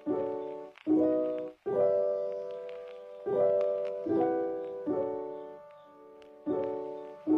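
Background piano music: chords struck every second or so, each left to ring and fade.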